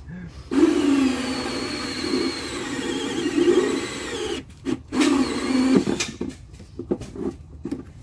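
Black & Decker cordless drill driving a 2-inch hole saw through the side of a plastic catch basin. It runs steadily for about four seconds, stops, then gives one shorter burst and a few brief trigger pulls as the cut finishes.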